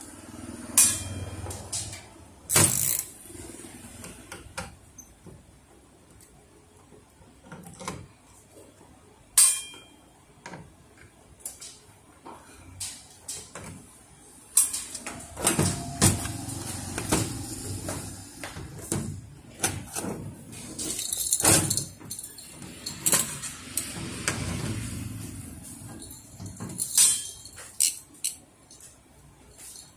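Parts of a photocopier fuser unit being taken apart by hand: scattered clicks, knocks and rattles as the plastic cover and metal brackets are unclipped, lifted off and set down on the table, busiest in the middle.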